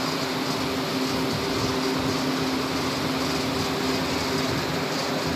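A steady hum with a constant low tone under an even rush of background noise, of the kind a fan, air conditioner or other running machine makes.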